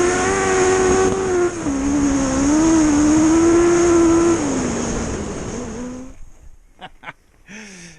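Four-cylinder Suzuki GSX400 engine of a home-built dirt bike running at high revs under way: the pitch dips at a gear change about a second and a half in, climbs again, then drops and fades out over the last few seconds.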